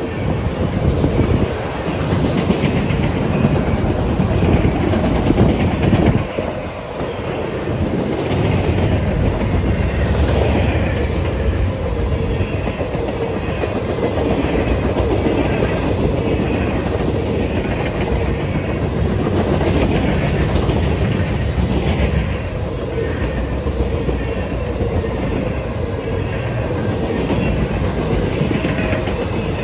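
A long freight train's cars rolling past close by, a steady rumble with the wheels clicking over the rail joints again and again; autorack cars give way to tank cars partway through.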